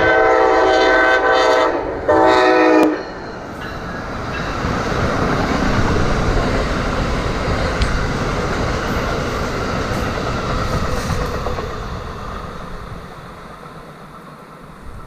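An Amtrak ACS-64 electric locomotive's horn ends a long blast about a second and a half in, then gives a second short blast. The train of Amfleet coaches then passes, its wheels rumbling on the rails, swelling and then fading away.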